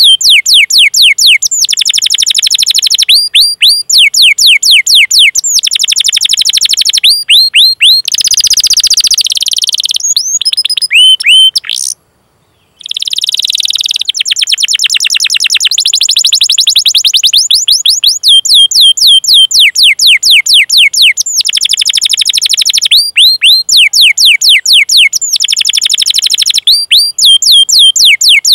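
Domestic canary singing fast rolling trills of rapid, high, downward-sweeping 'cuit cuit' chirps, in runs broken by short pauses. The sound cuts out completely for under a second about twelve seconds in.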